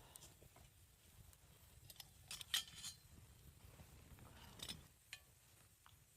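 Faint handling noises: a cluster of light clicks and clinks about two and a half seconds in and another near four and a half seconds, over a quiet low rumble.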